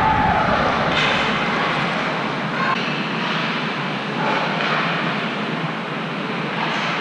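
Crowd noise from spectators in the stands: a steady din that eases off over the first couple of seconds.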